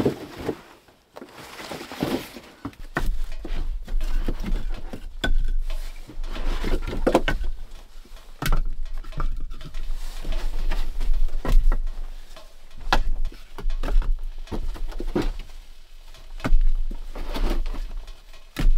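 Split firewood logs knocked together and set down one by one as they are stacked by hand: irregular wooden knocks and clatter.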